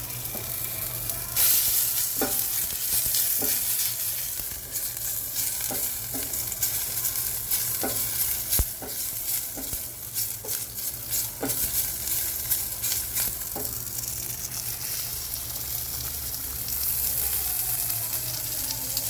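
Chicken fat sizzling as it fries and renders in a pot, with a utensil stirring and tapping against the pot every second or so. The sizzle swells louder early on and again near the end.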